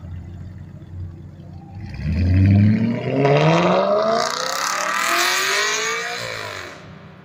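Audi RS5 pulling away hard: engine idling, then revving up in rising pulls, each followed by a drop in pitch as it shifts up, about three times, loudest as it launches and fading as it drives off.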